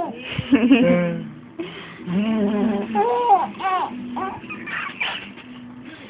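A baby squealing and babbling with laughter, in short high, pitch-swooping vocal bursts. A short low, buzzy lip-raspberry fart noise comes about half a second in.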